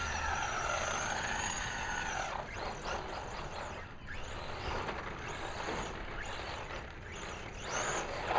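Brushless electric motor of a radio-controlled truck whining as it revs up and down again and again, with tires scrubbing on the ground, while the truck spins donuts.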